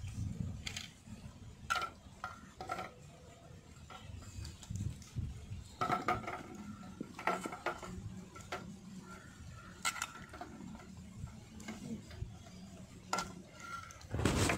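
Eggs being swished around by hand in water in an aluminium basin: water sloshing, with irregular clinks and knocks of eggshells against each other and the metal pot.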